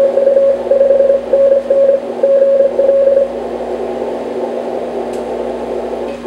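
Morse code (CW) signal from an amateur radio transceiver's speaker: a single tone keyed in dots and dashes over band hiss for about three seconds, then only hiss and static, with a steady low tone beneath. The operator calls it a big signal from Russia.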